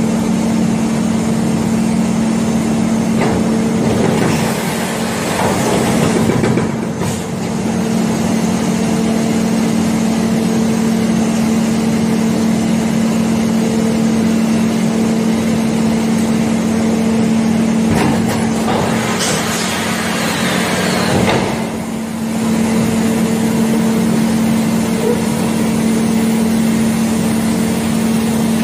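A steady mechanical hum, with two swells of rushing, hissing noise about four to seven and nineteen to twenty-two seconds in: an Airbus A380's landing gear and gear doors extending under hydraulic power during a gear-swing test.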